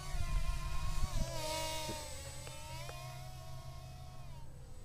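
Lian Sheng LS114 mini quadcopter's motors and propellers buzzing in flight, a steady whine whose pitch wavers and sags slightly as the throttle changes. A low rumble sits under it, strongest in the first second.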